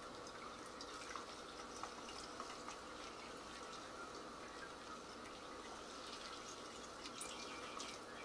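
Faint dripping and trickling of plum juice into a plastic fermenting bucket as a mesh straining bag of plum pulp is squeezed by hand, with small wet ticks scattered throughout.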